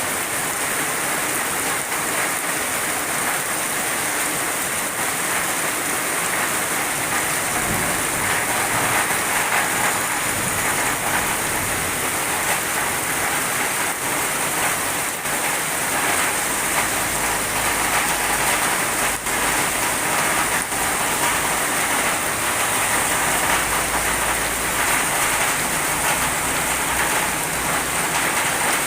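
Heavy rain pouring down steadily onto surfaces, with a low rumble of thunder about eight seconds in and again through much of the second half.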